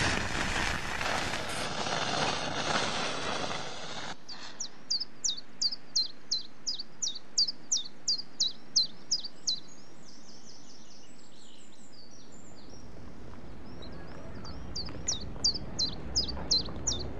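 A match struck with a sharp scrape, then flaring with a hiss for about four seconds. After that a songbird repeats a quick high chirp about three times a second in two runs, the second near the end.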